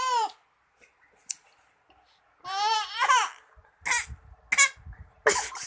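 Five-month-old baby vocalizing: a high, wavering squeal about halfway through, then three short breathy bursts, the baby's playful fake coughs.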